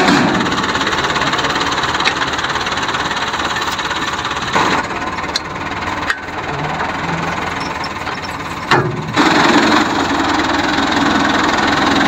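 Diesel engine of a Fiat 640 tractor idling steadily, with two brief louder noises, one about halfway and one about three-quarters of the way through.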